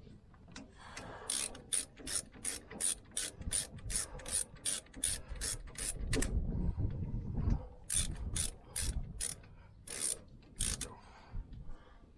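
Ratchet wrench clicking in a fast, even run of about three to four clicks a second for several seconds, then, after a pause, a shorter run and two last clicks.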